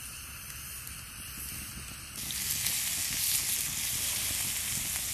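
Raw beef sizzling on a campfire-heated stone slab, a steady hissing sizzle that grows suddenly louder about two seconds in: the stone is hot enough that the meat sears fast.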